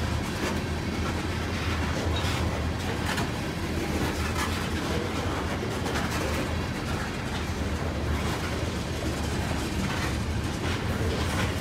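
Freight train of loaded tank cars rolling past: a steady rumble with repeated clicks from the wheels.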